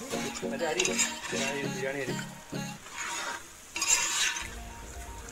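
A long metal ladle stirring chicken pieces through thick masala in a large metal pot on a gas burner, scraping the pot and sizzling as the chicken is sautéed. Stronger scraping strokes come about a second in and again about four seconds in.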